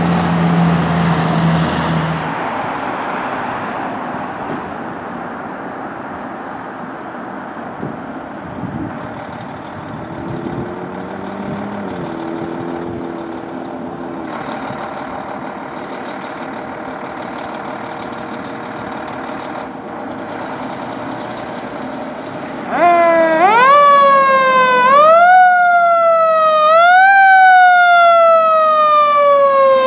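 Fire truck siren winding up about 23 seconds in and sounding loudly: its pitch rises quickly and falls away slowly, several times over. Before it, a steady low horn note in the first two seconds, then a quieter stretch of background noise.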